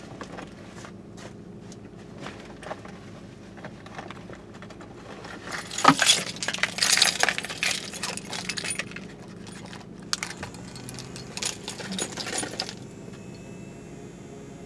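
Metallic jangling and clattering in quick bursts for several seconds, starting about five seconds in, like a bunch of keys being handled; a faint steady hum comes in near the end.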